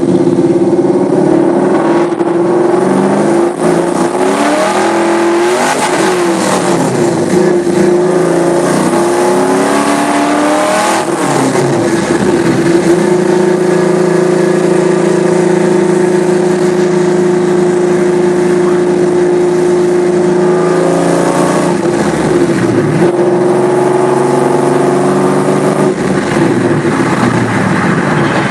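Chevrolet Camaro's LQ4 6.0-litre V8 under way, revving and rising and falling in pitch for the first dozen seconds. It then holds a steady drone at cruise, and rises and falls again about three-quarters of the way through.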